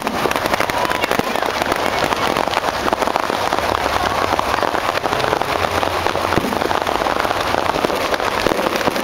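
Fireworks crackling, a dense, unbroken rain of small rapid pops, with people talking underneath.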